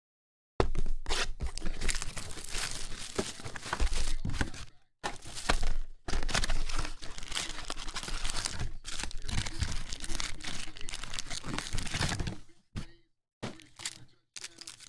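A box of Panini Chronicles basketball cards being opened by hand: a dense run of cardboard and plastic-wrap tearing and crinkling as the box is torn open and its wrapped packs pulled out. It starts suddenly about half a second in and thins to a few short crinkles near the end.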